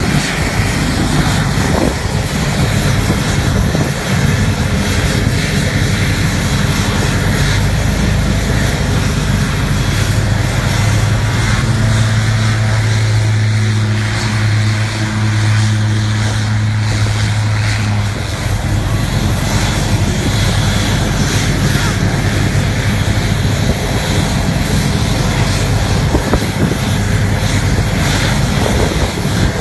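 Light propeller aircraft: a steady rushing engine and propeller noise throughout, with a low-wing single-engine propeller plane passing low overhead, its propeller drone loudest from about 11 to 18 seconds in.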